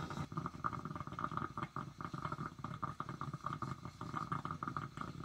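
A 1950 electric metal coffee percolator perking: a continuous, rapid, irregular gurgle and bubble as the water is forced up through the coffee basket.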